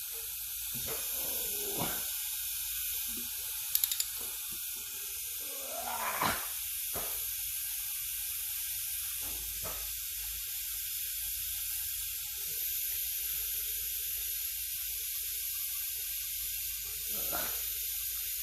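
A steady high-pitched hiss, with a few light clicks and brief knocks of tools being handled against it.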